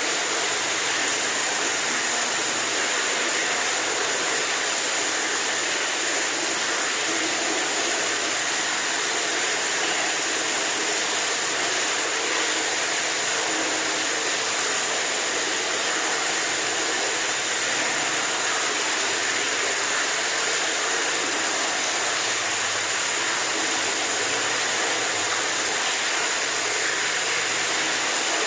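Running water: a steady, unbroken hissing rush that does not change.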